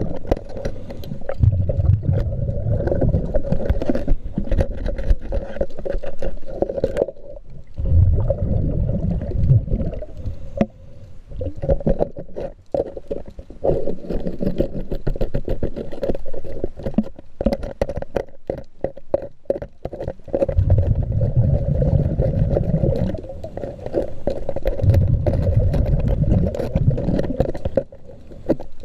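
Underwater sound of a diver cleaning a hull: low bubbling rumbles of exhaled breath come in surges every few seconds over a steady hum, with scattered clicks and scrapes from the scraper working the fouled hull, thickest in the middle.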